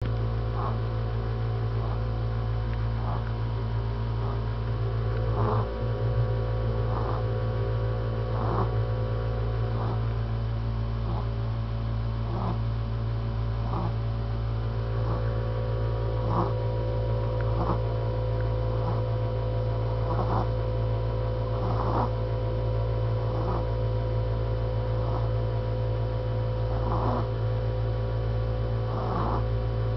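Soft snoring: short breaths repeating about once a second, heard under a loud steady hum.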